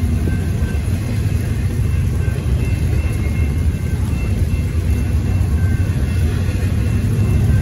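Double-stack intermodal container train rolling through a grade crossing: a steady, loud, low rumble of well-car wheels on the rails, with faint high tones coming and going through it.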